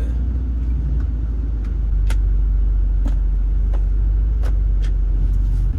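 Low, steady in-cabin rumble of a 2008 BMW 135i's engine and drivetrain as the car moves off in reverse, getting a little louder about two seconds in. A few light clicks come over it.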